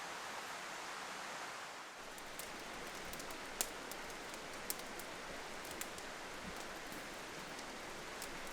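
Steady rushing of nearby river rapids, with scattered faint ticks from about two seconds in.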